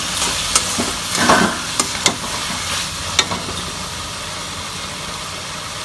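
Diced pumpkin sizzling in oil in a metal wok while a steel spatula stirs it, scraping and clicking against the pan several times in the first three seconds; after that only a steady sizzle.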